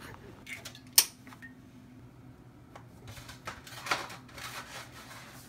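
One sharp click about a second in, then a run of short clicks and rattles as an oven temperature dial is turned, over a faint steady low hum.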